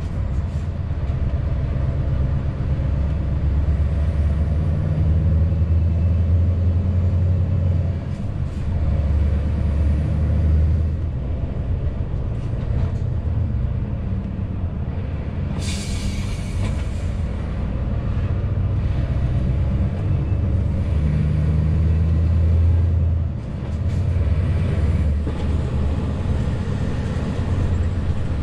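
Scania S650's V8 diesel engine pulling a loaded cement tanker at road speed, its low engine note rising and falling and dipping briefly twice. There is a short hiss about halfway through.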